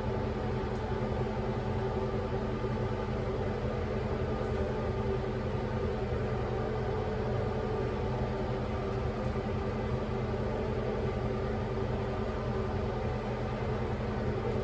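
A steady mechanical hum with a constant drone, unchanging throughout.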